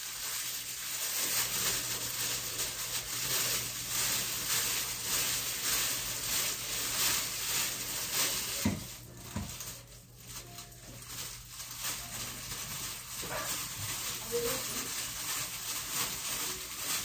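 Gloved hands rubbing and working hair colour treatment through long hair: a rustling rub in quick, irregular strokes, quieter for a moment about ten seconds in.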